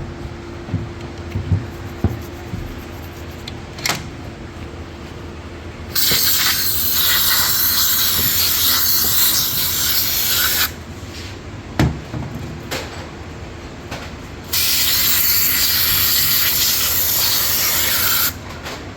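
Two long hissing blasts of a pressurised spray, each about four seconds, separated by a few short knocks, as engine parts are sprayed clean.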